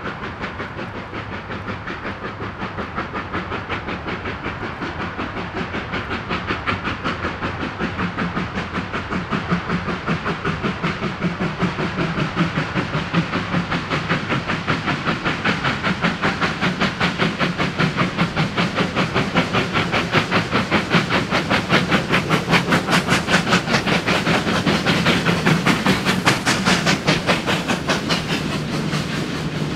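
Two Victorian Railways R class Hudson steam locomotives under steam, their exhaust beats in a quick, even rhythm with hiss. The sound grows steadily louder as they approach and is loudest in the last few seconds as they pass close by.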